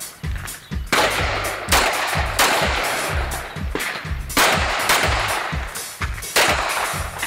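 A string of pistol shots from a Tanfoglio Stock III, fired roughly under a second apart, each with a short echo trailing off, over background music with a steady beat.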